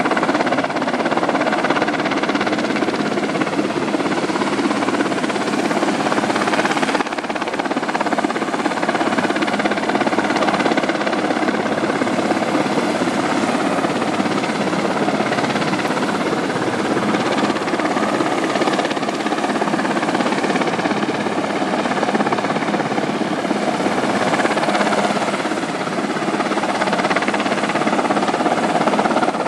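Sikorsky helicopter hovering low, its rotor and engines making a loud, steady drone.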